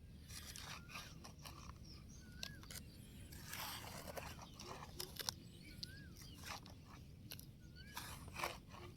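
Faint scraping and clicking of small toy vehicles being handled as a toy mini dumper is pushed up onto a toy carrier, in irregular short scrapes and taps. A short rising-and-falling chirp repeats every second or two in the background.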